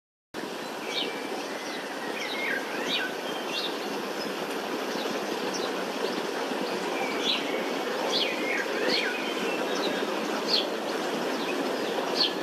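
Birds chirping in repeated short, sweeping calls over a steady, even outdoor background noise, both starting abruptly just after the start.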